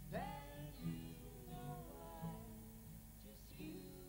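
Background music: pitched notes changing every half second or so, with a rising glide at the start.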